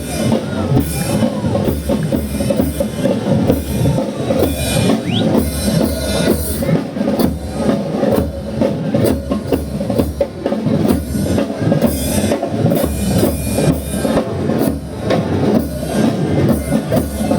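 Loud parade music driven by drums and percussion, a steady beat of bass drum and sharp hits.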